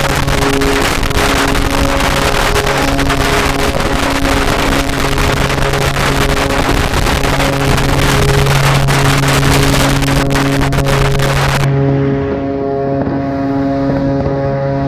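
Dense, continuous crackling and rushing noise of strings of firecrackers going off, over background music. About twelve seconds in the crackle cuts off suddenly and only the music is left.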